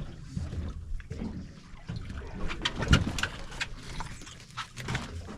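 Irregular clicks and knocks over a low rumble aboard a small fishing boat: tackle and a just-landed fish being handled.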